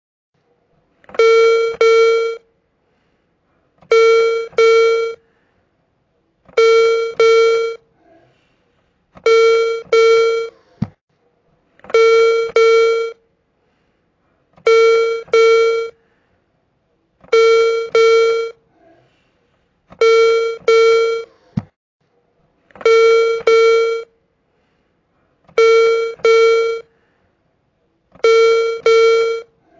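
Hearing aid low-battery warning: a double beep, two short buzzy tones of the same pitch, repeating about every three seconds, eleven times in all.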